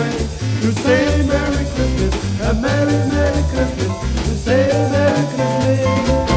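Instrumental passage of a Hawaiian-style Christmas song from a 1963 record: a lead melody line that glides up into its notes over a steady stepping bass line.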